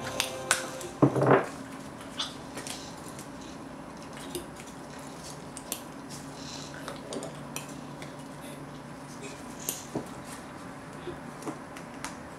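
Handling noise of masking tape and small plastic parts being fitted onto a hobby RC servo: scattered small clicks and taps, with a louder cluster of clicks about a second in.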